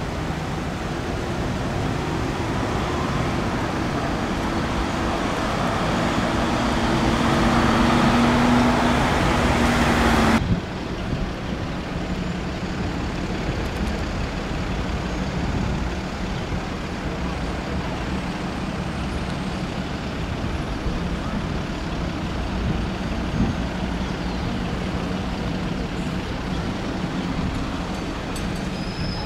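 Road traffic with heavy vehicle engines. One engine grows steadily louder over the first ten seconds, then the sound changes abruptly to a quieter, steady engine hum over background traffic.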